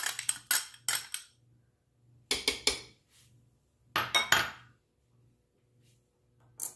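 A metal spoon clinking and scraping against a can as cream of mushroom soup is scooped into a slow cooker. It comes in three short runs of knocks a couple of seconds apart, with one more clink near the end.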